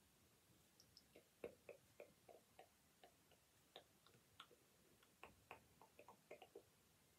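Faint, irregular ticks and soft taps, a couple of dozen in a few seconds, from a makeup brush being handled and brushed close to the microphone.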